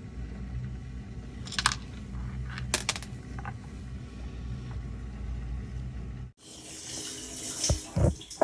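LG dishwasher running its wash cycle: a steady low pump hum and the hiss of water sprayed by the lower spray arm, with a few light clicks. The arm has a break in its assembly and throws a stray jet from its side against the door. About six seconds in the sound cuts abruptly to a louder, brighter hiss of spraying water.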